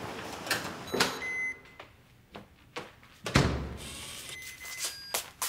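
Electronic keypad door lock beeping and chiming as it is worked, then a single heavy thud from the door about a third of the way in. Short electronic beeps come again near the end, among light clicks and steps.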